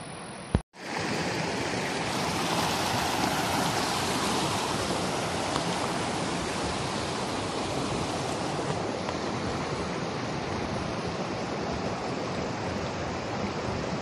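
Shallow river water rushing steadily over rock slabs and small rapids. A sharp click with a brief dropout comes just under a second in.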